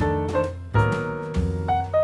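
Background jazz music: a piano tune over a bass line that changes note every half second or so.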